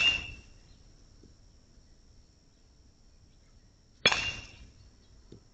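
StringKing Metal 2 BBCOR metal bat hitting baseballs twice, about four seconds apart: each hit a sharp metallic ping with a short ring.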